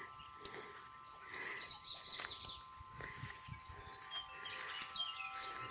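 Wild birds chirping and calling in short, high, warbling phrases, over a faint steady background of thin high tones.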